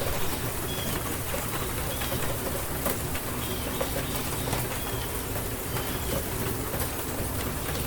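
Steady rainfall hiss with scattered drop ticks, while a small bird gives a short, high chirp about once a second.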